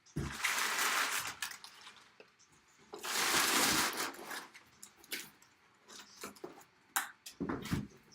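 Packaging being handled as a box is opened: two long spells of loud crinkling and tearing, about a second in length each, with scattered knocks and clicks from the box in between and near the end.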